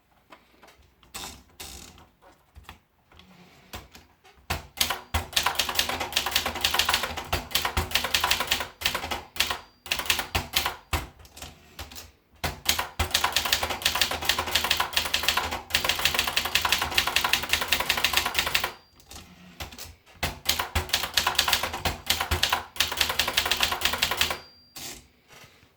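Vendex 500T typewriter being typed on fast: long runs of rapid key strikes, broken by a few short pauses. A brief high ring sounds three times, each just before a pause.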